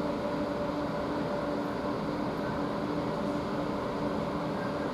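Steady hum of a Great Western Railway Class 802 bi-mode train at the platform, its underfloor diesel engines running with a low, even drone.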